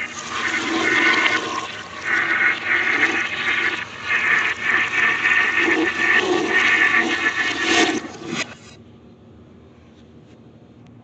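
Toilet flush played backwards: loud rushing, swirling water that swells and then cuts off suddenly about eight and a half seconds in, leaving faint room tone.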